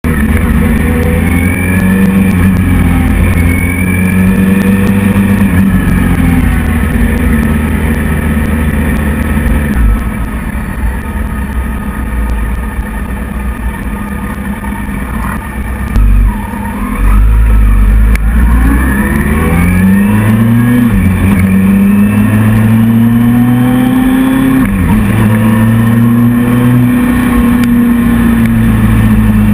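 Motorcycle engine heard from the bike itself with heavy wind rumble on the microphone, revs rising and falling with gear changes. About a third of the way in it drops to a quieter idle while stopped, then pulls away, revs climbing and dropping sharply through several gear shifts.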